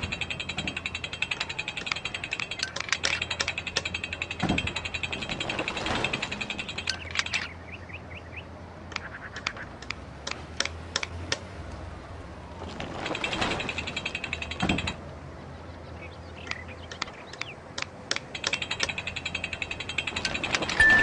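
Rapid mechanical ratcheting clicks. Stretches of fast, even ticking alternate with a few sparser single clicks around the middle.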